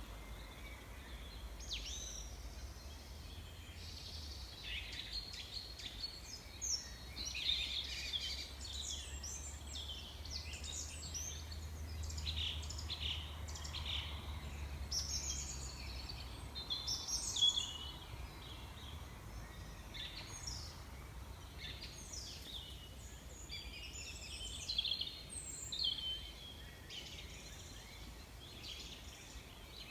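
Small birds chirping and singing, many short calls and trills overlapping throughout, with a low rumble underneath during the first half.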